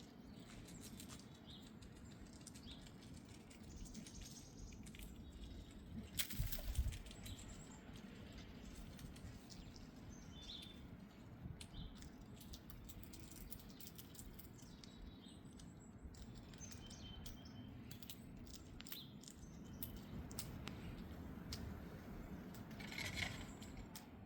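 Quiet backyard ambience with scattered faint bird chirps and small clicks and rustles. There is a louder knock and rustle about six seconds in, and another short burst of rustling near the end.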